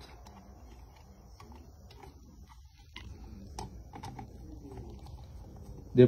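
Scattered light plastic clicks and taps as the relay-box cover on a refrigerator compressor is fitted back in place with a screwdriver.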